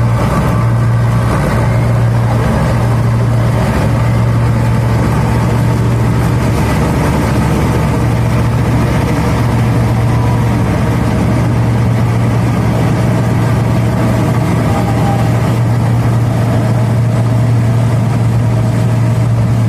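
HMT 5911 tractor's diesel engine running steadily under load as it drives a straw reaper harvesting wheat stubble, with the reaper's machinery turning. A constant deep drone with no breaks.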